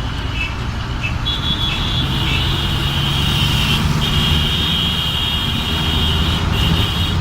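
Road traffic with vehicle engines running. A steady high-pitched tone sounds over it from about a second in, with two short breaks.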